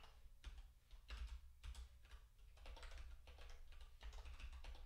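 Typing on a computer keyboard: quiet, irregular keystroke clicks, some in quick runs.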